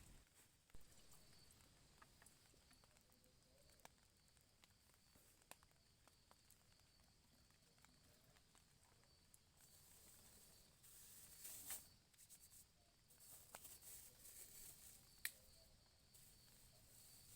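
Near silence: a faint steady high hum, with scattered small clicks. About two-thirds of the way through come a couple of short bursts of rustling, then one sharp click.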